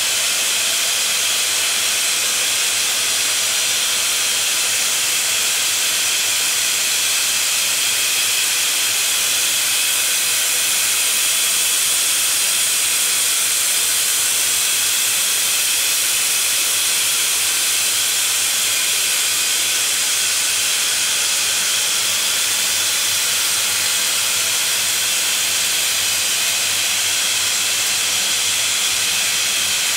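ESAB Hybrio hybrid laser-arc welding head running a girth weld on a steel pipe: the welding arc gives a steady, even hiss with no breaks.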